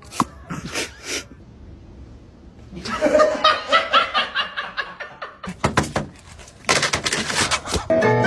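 A person laughing in quick repeated bursts, after a few short sharp clicks in the first second.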